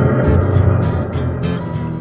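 Acoustic guitar strumming starts up over a deep low rumble that fades away.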